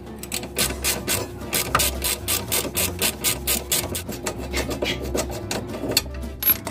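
Ratchet wrench worked quickly back and forth on a lower shock-absorber mounting bolt, a steady run of rasping clicks at about six strokes a second.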